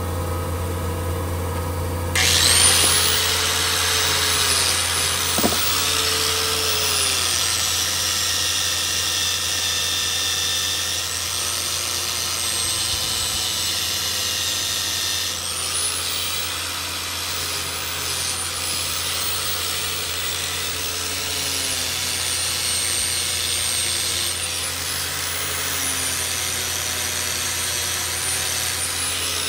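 Handheld grinder with a white sanding wheel starts up about two seconds in and grinds a tungsten button turning on the lathe. Its high whine dips and recovers again and again as the wheel is pressed on and eased off, over a steady low hum.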